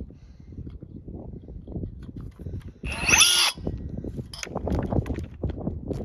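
Cordless Ryobi drill running in drill mode, boring a hole upward into the trailer with an uneven grinding sound and a louder burst about three seconds in.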